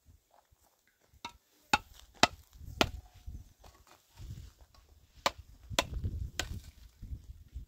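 A series of sharp blows from a hand tool striking, about two a second: four strokes, a pause of about two seconds, then three more.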